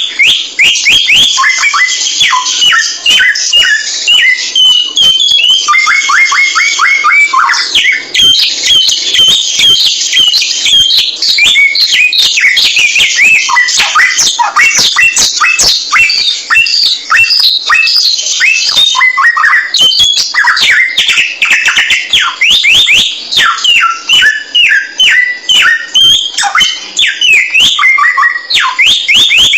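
A songbird singing nonstop in a fast, varied stream of chirps, squeaky notes and quick up-and-down whistles, with many sharp clicks mixed in.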